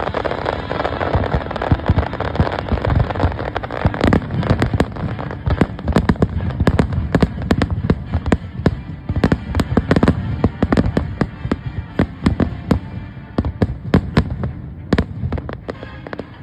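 Fireworks display: a rapid barrage of bangs and crackles, many reports a second, over a continuous low rumble, thinning out near the end.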